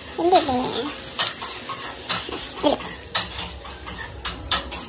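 Rustling and clicking of plush stuffed toys being handled, with two short falling whimpers from a small shih tzu dog, one just after the start and one near the middle.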